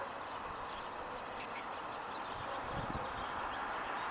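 Steady outdoor background noise, like a distant traffic hum, with a few faint bird chirps.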